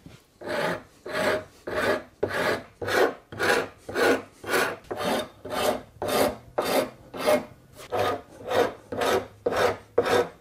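A coarse wood rasp filing the curved back of a wooden hand-plane body in steady, even strokes, about two a second, starting about half a second in. This is the rough shaping pass, before smoothing with a finer pattern maker's rasp.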